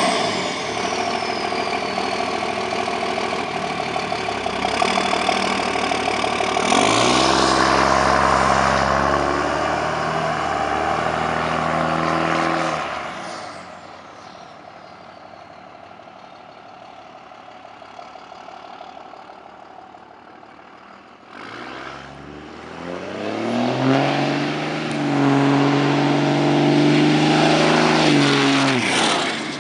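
Dodge Ram's 24-valve Cummins 5.9-litre inline-six diesel through a 5-inch straight-pipe exhaust, accelerating hard away with its pitch climbing, then fading into the distance. About eight seconds from the end it returns, rising again in pitch and loudness as it passes close by, then drops away.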